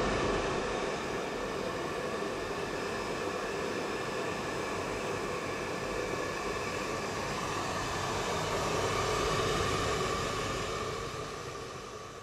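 Handheld hair dryer blowing steadily, a loud even rush of air with a faint motor whine through it; it fades away near the end.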